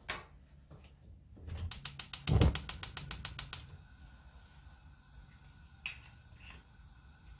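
Gas stove burner being lit: a rapid, even run of igniter clicks, about nine a second for two seconds, followed by the faint steady hiss of the burning gas. A single knock comes first.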